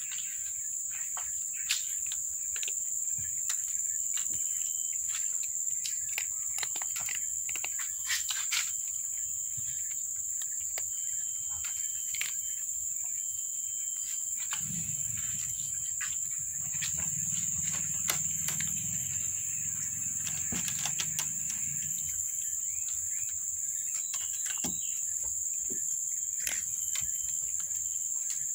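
Insects give a steady, high-pitched drone throughout, while cats chew dry kibble close by in short, scattered crunching clicks. A low hum rises for several seconds around the middle.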